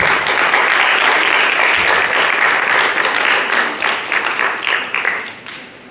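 Audience applauding, a dense patter of many hands clapping that thins to a few scattered claps and stops near the end.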